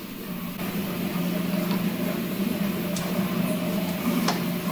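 A steady low machine hum of 3D printers running, with two faint clicks about three and four seconds in.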